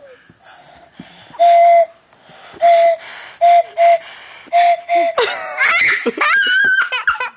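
Toy train whistle blown in six short toots, the first the longest, each a steady single note. For about the last two seconds, a child's high, squealing laughter.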